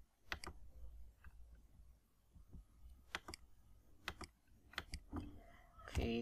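Computer mouse clicking: a few sharp clicks, several in close pairs, with a louder short sound near the end.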